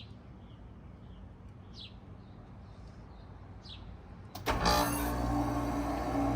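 A few faint bird chirps over a quiet background, then a bit over four seconds in a 3-ton Bard wall-hung heat pump starts up in cool mode: a sudden loud rush of fan noise with a steady hum that runs on.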